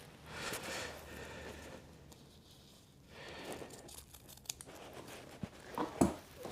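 Rustling and crumpling of upholstery fabric being handled, with a few sharp knocks near the end, the loudest about six seconds in.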